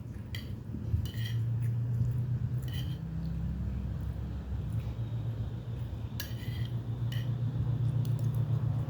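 Spoon and fork clinking lightly against plates and bowls, about eight short clinks spread irregularly, over a steady low hum.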